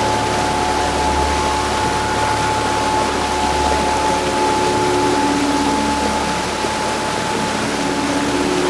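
Heavy rain falling, a steady even hiss with no let-up, with a few faint held tones running underneath.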